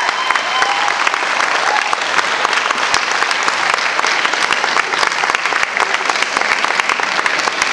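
An audience applauding with dense, steady clapping. The last ringing notes of the handbells fade out in the first second.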